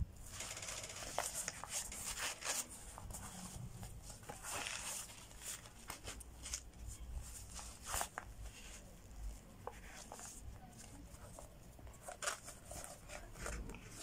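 Rustling and handling of a fabric tactical pouch as its zippered pockets are opened and felt inside, with many short scrapes and soft clicks of the zips and fabric.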